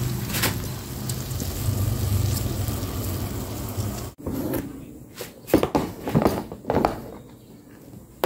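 Egg frying in hot oil in a wok: a steady sizzle over a low hum, which stops abruptly about four seconds in. Then several sharp knocks follow, a fraction of a second apart.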